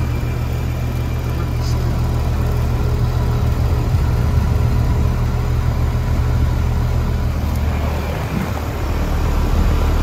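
Tempstar N4H436GKP200 heat pump outdoor unit running in heat mode: the compressor's steady low hum under the rush of the condenser fan.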